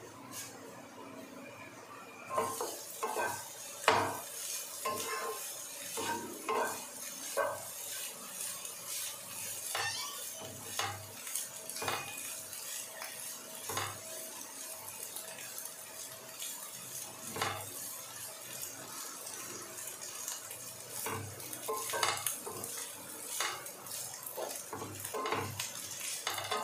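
Egg bhurji sizzling in a frying pan while a spatula stirs it, scraping and knocking irregularly against the pan. The sizzle comes up sharply about two seconds in. The eggs are being fried until browned.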